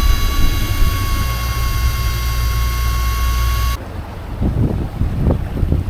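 Fishing boat's engine running steadily, a low rumble with a steady high whine over it, cut off abruptly about four seconds in; after that, wind buffeting the microphone in uneven gusts.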